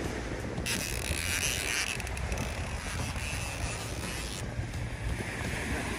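Heavy saltwater fishing reel working with a rasping, ratchet-like buzz, from about half a second in until about four and a half seconds in, as a fish is fought on the rod. Wind on the microphone and surf rumble underneath.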